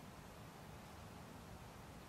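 Near silence: still woodland ambience, only a faint steady hiss with a soft low rumble beneath it.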